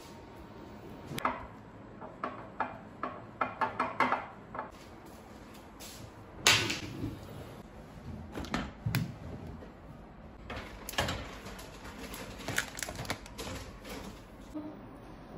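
Irregular clicks, knocks and clinks of kitchen items being handled: jars and cans picked out of a pull-out wire pantry rack, with a sharper knock about six and a half seconds in.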